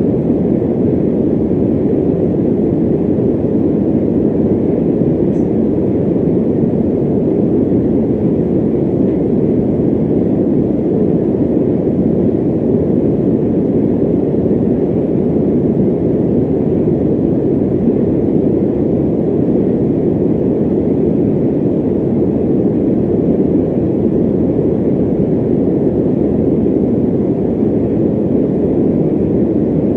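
Electric fan running steadily: an even, low rush of moving air with no change in level.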